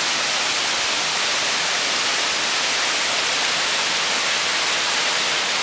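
Tatsuma Falls, a mountain waterfall, rushing steadily: an even, unbroken hiss of falling water.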